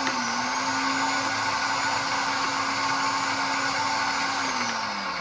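Car starter motor spinning on its own, a steady electric whine that winds down in pitch near the end. It runs whenever the battery is connected, with no key in the ignition, even after a new starter was fitted.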